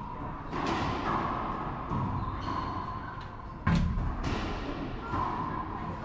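Racquetball rally: the sharp pops of racquet strings hitting the hollow rubber ball and the ball smacking off the court walls, each hit ringing in the enclosed court. The loudest hit is about three and a half seconds in.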